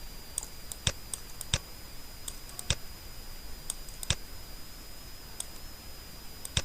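Computer mouse and keyboard clicks: about five sharp, separate clicks spread a second or more apart, with fainter small ticks between them, over a faint steady high-pitched whine.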